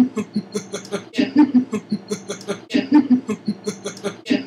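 A woman laughing in a quick run of short rhythmic laughs, the same pattern coming round about every second and a half.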